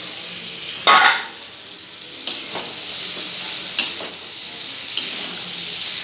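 Chicken pieces frying in hot oil and sauce, sizzling steadily while being stirred. There is a loud burst of sizzle about a second in, and a spatula knocks against the pan three times.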